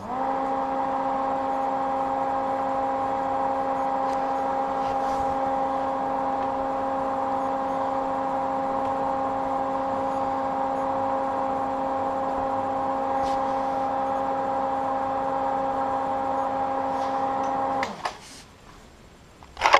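Old slide projector running, its cooling fan going with a steady hum from the moment it is switched on. The sound cuts off suddenly near the end when the projector is switched off.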